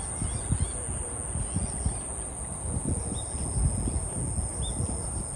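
Outdoor ambience of wind buffeting the microphone, with a steady high-pitched insect drone and two short bird chirps about three and four and a half seconds in.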